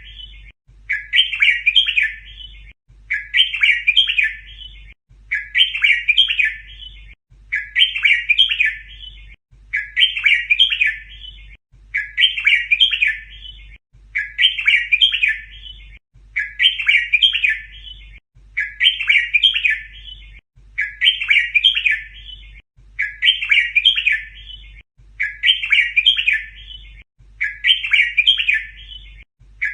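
Red-whiskered bulbul song: the same bright 'double'-style phrase, about a second and a half long, repeated every two seconds or so with identical form each time. This is a looped song recording played to teach young bulbuls to sing, over a faint low hum.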